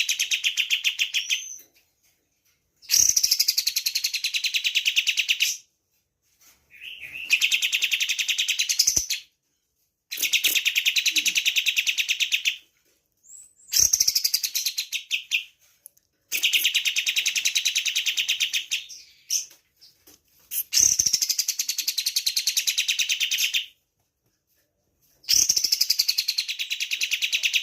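Kapas tembak singing in about eight bursts of rapid, tightly packed chattering song, each two to three seconds long, with short pauses between them.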